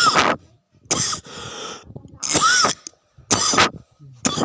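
A person coughing hard about five times, roughly once a second, with breathy intakes between the coughs. This is the cough of a cold.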